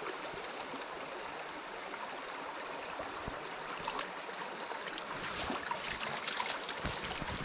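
Small stream running over a shallow gravel riffle, a steady rush of water, with a few faint light ticks in the second half.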